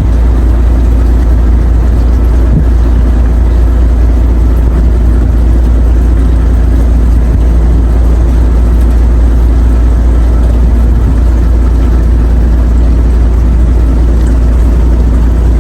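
Fishing boat's engine idling, a steady low rumble with an even wash of noise over it.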